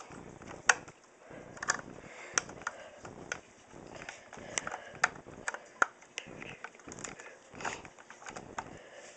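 Irregular sharp clicks and light knocks of a screwdriver and hands working a screw out of the plastic stock of a UTG tri-shot airsoft shotgun, with the sharpest clicks about a second in and again near the six-second mark.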